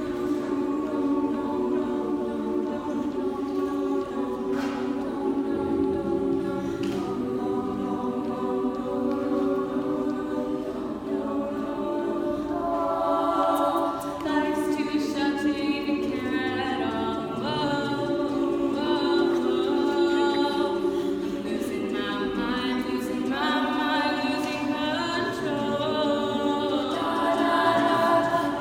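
A cappella vocal group singing with no instruments: low voices hold sustained chords while the upper voices move above them. The sound grows fuller about halfway through.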